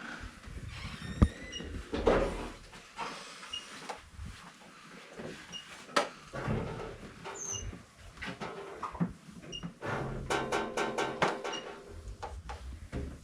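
Handling noises: scattered knocks and rubbing, with a quick run of squeaky strokes near the end and faint short high chirps every second or two.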